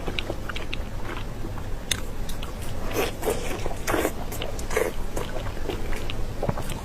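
A person biting and chewing food close to the microphone: irregular wet mouth clicks, with louder bites about three, four and five seconds in.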